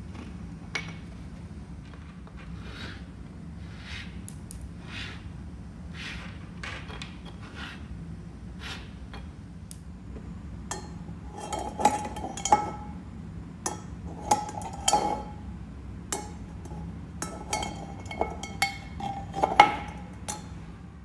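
A pencil tip working on a wooden tabletop in soft, regular strokes about once a second. About halfway through, this gives way to a cluster of small magnetic metal balls clacking against a small metal tin, with a dozen or so sharp, loud clicks, several of them leaving a short metallic ring from the tin.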